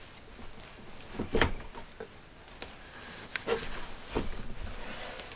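A few sharp knocks and clicks of metal parts being handled as the oil pump is worked loose from the Honda 400/4 engine case. The loudest comes about a second and a half in, and several lighter ones follow.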